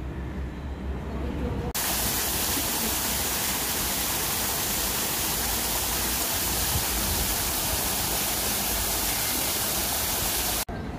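Small artificial rock waterfall splashing into a pool: a steady, even rush of falling water that starts abruptly about two seconds in and cuts off just before the end. Before it, a low background rumble.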